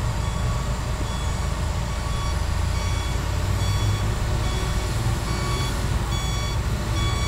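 Dump truck reversing, its back-up alarm sounding as a run of short, evenly spaced high beeps over the low, steady running of heavy diesel engines.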